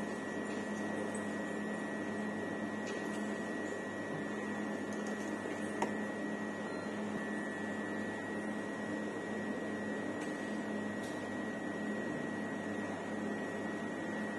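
Steady machine hum of a cryostat running, with a low tone and a thin high whine that hold unchanged, and a faint tick about six seconds in.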